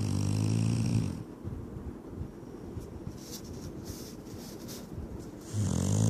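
Shar Pei dog snoring in its sleep: a loud, low snore in the first second, quieter breathing for a few seconds, then another loud snore starting near the end.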